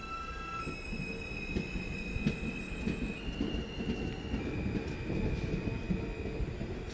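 R160 subway train pulling away: its traction motors give a high whine that shifts pitch in steps, over the low rumble and clatter of steel wheels on the rails.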